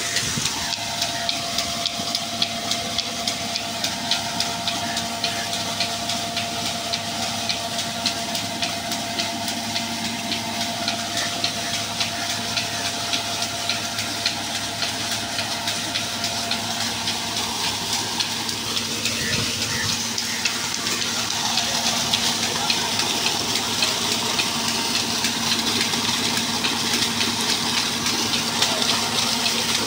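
Water from a tractor-driven irrigation pump gushing out of the discharge pipe into a concrete tank and rushing away down a channel: a steady, unbroken rushing splash, with a faint steady hum from the tractor and pump beneath it.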